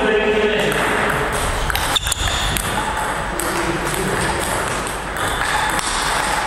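Table tennis ball being hit by bats and bouncing on the table during a short rally, with a sharp click about two seconds in, over steady background noise.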